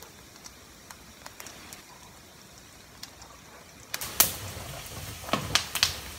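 Cumin and coriander seeds frying in hot oil in a pan, a faint sizzle with small scattered crackles. About four seconds in, a spatula starts stirring them, with several sharp knocks against the pan and louder sizzling.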